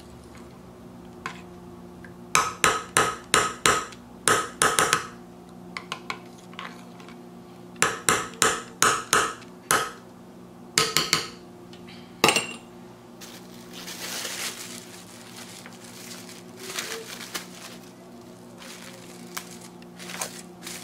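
Metal spoon stirring thick liquid soap in a glass measuring cup, clinking against the glass in quick runs of strikes. Later comes a soft crinkling of plastic cling wrap being stretched over the cup.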